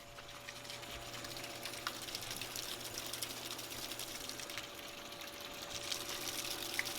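Floodwater running and splashing, with many small drips and drops, over a faint steady hum.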